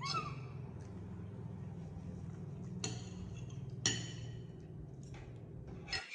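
Metal cutlery clinking against ceramic plates: a sharp clink at the start, two more about a second apart around three to four seconds in, and one near the end. Under them runs a steady low hum that cuts off abruptly near the end.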